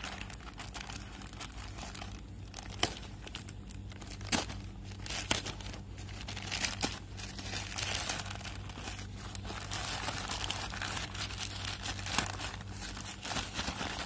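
Plastic courier mailer bag being crinkled and pulled open by hand, with dense crackling and sharp snaps scattered throughout. A faint steady low hum runs underneath.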